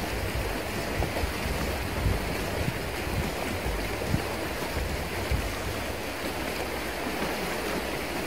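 Shallow river riffle rushing steadily past, with a few dull low bumps now and then.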